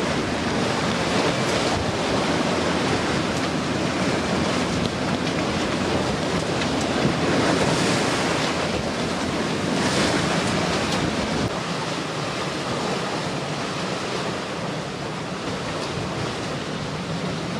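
Sea water rushing and splashing along the hull of a sailing yacht heeled under sail in rough water, with wind gusting across the microphone. It swells a little about halfway through and eases slightly near the end.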